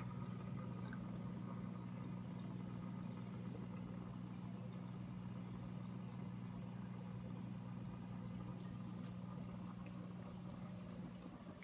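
Steady low hum of aquarium equipment, running evenly with no change.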